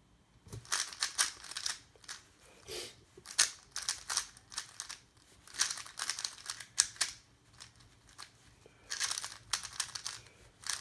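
A 3x3 puzzle cube's plastic layers being turned fast by hand in a speedsolve, giving quick runs of clicks and rattles with short pauses between them.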